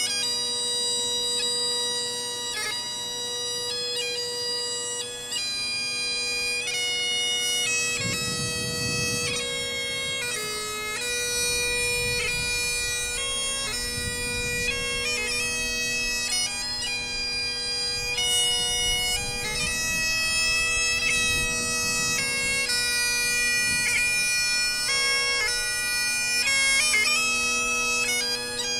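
Great Highland bagpipe played solo: the chanter carries a melody of held notes, changing every second or so, over the steady unbroken drones.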